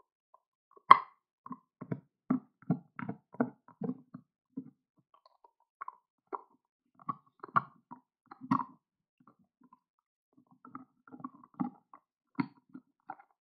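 Beagle gnawing an elk antler: hard clicks and knocks of teeth on antler, in irregular runs of a few a second with short pauses between.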